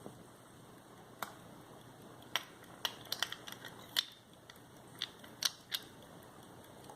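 Light, irregular clicks and taps as the silver pair-case of an antique pocket watch is handled, about a dozen of them scattered with no steady rhythm.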